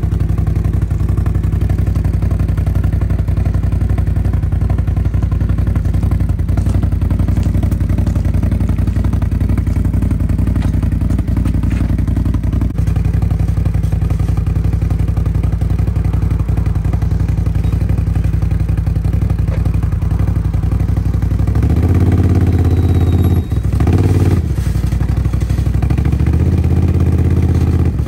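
ATV engine running steadily at a constant speed, with some clatter from the machine. About two-thirds through it gets louder for a few seconds, with a brief drop in between.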